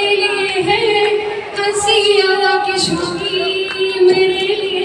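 A woman singing into a microphone through a hall's sound system, holding a long, slightly wavering note.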